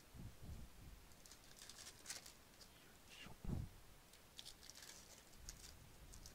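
Faint, soft clicking and sliding of Game of Thrones trading cards being flipped through and laid onto a stack on a table, with one dull thump about three and a half seconds in.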